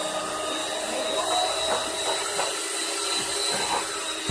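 A small electric motor running steadily with a constant whir.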